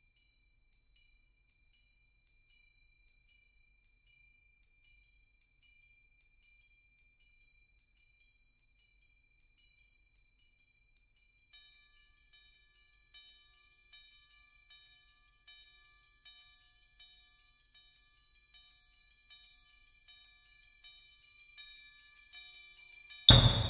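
Percussion ensemble striking small metal percussion in an even pulse, about four strikes every three seconds, each ringing high and bright; a second layer of ringing tones joins about halfway. Near the end a loud low drum stroke with a metallic crash.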